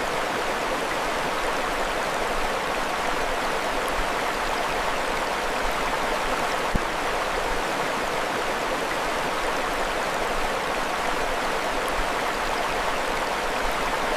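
Mountain stream flowing with a steady, even rush of water, with one brief tick about halfway through.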